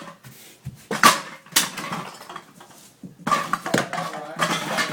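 Vinyl air mattress squeaking in a series of short, loud squeals as someone rocks and presses on it, the noise it makes under weight and movement.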